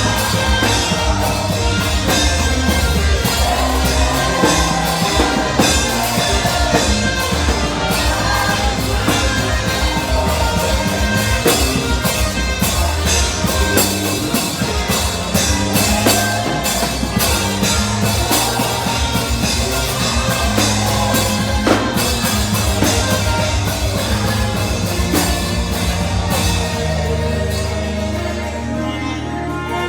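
Live worship band music: a drum kit keeping a steady beat over sustained bass, with a melody line on top from the saxophone and voices. The drums and deep bass drop away near the end.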